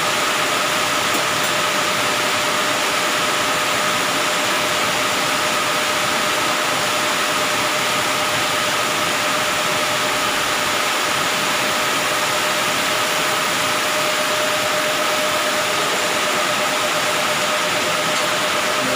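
A machine running steadily in a workshop: an even, unchanging hiss with a steady mid-pitched whine through it.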